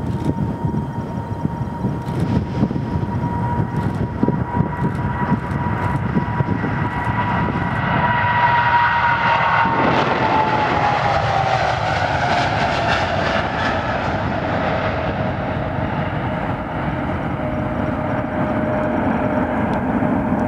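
Boeing 777 twin jet engines at take-off thrust during the take-off roll and climb-out. A steady whine over a low rumble grows louder about eight seconds in, then drops in pitch a couple of seconds later as the aircraft passes.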